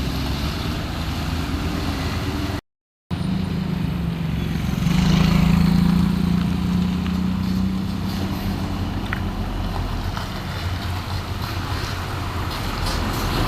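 Road traffic with trucks going by: steady engine and road noise, with one vehicle's engine drone rising to its loudest about five seconds in and fading after. The sound cuts out completely for half a second near three seconds in.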